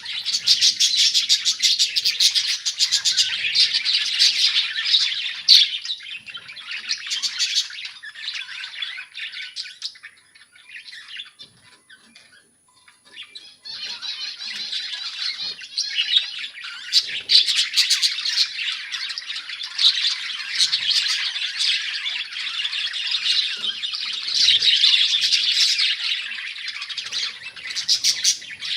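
A flock of budgerigars chattering, chirping and squawking together in a dense, continuous warble. It thins out about ten seconds in, almost stops for a couple of seconds, then picks up again as loud as before.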